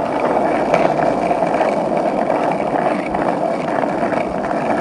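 Skateboard wheels rolling steadily over rough asphalt, a continuous loud rolling rumble.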